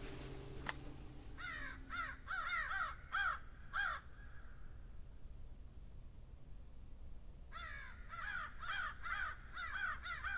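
A crow cawing: a quick run of harsh caws, a pause of about three seconds, then a second run.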